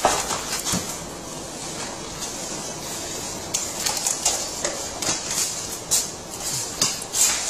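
Handling noises on a plastic ride-on toy car: a knock at the start, then a steady hiss with scattered sharp clicks and knocks in the second half.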